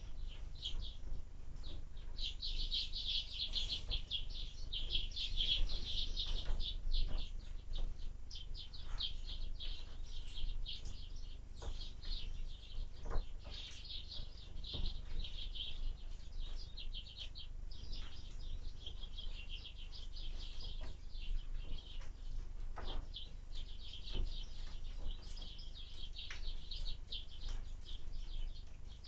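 Small birds chirping rapidly and continuously at a window bird feeder, with a steady low wind rumble on the microphone and scattered short clicks.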